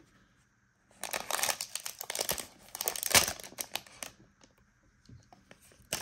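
Plastic wrapper of an NBA Hoops trading card pack crinkling and tearing as it is handled and pulled open by hand. The crinkling starts about a second in, is loudest about three seconds in, dies down, and starts again near the end.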